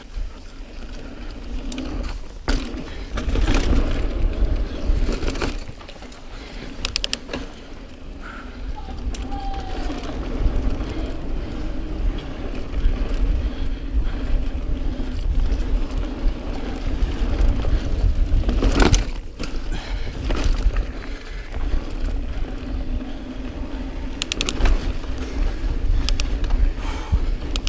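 Niner EMD 9 aluminium hardtail mountain bike ridden over dirt singletrack, heard from a camera on the bike: a steady rumble of wind and tyres on dirt, with sharp clicks and rattles of chain and frame over bumps, the loudest about 19 seconds in.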